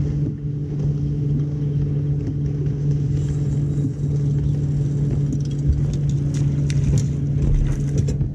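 A boat motor runs at a steady pitch with a constant hum, with light rustling and clicks over it from about three seconds in.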